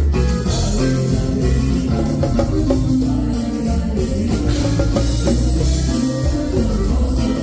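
A live band playing a song at a sound check, with guitar, bass and drum kit.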